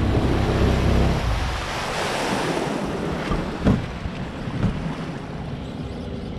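A boat's outboard motor running for about the first second, then rushing water and wind on the microphone as the boat moves through the river, with a couple of short knocks near the middle.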